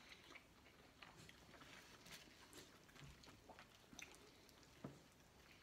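Near silence with faint chewing and soft mouth clicks of people eating sub sandwiches; a slightly louder click comes near the end.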